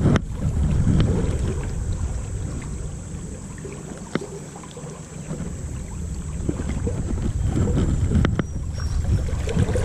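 Low, gusting rumble of wind on the microphone over river water, with three sharp clicks: one at the start, one about four seconds in and one about eight seconds in.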